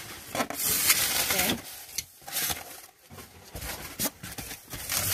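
Cardboard box and styrofoam packing rustling and scraping while a boxed mirror is handled, in irregular bursts with a quieter spell about two to three seconds in.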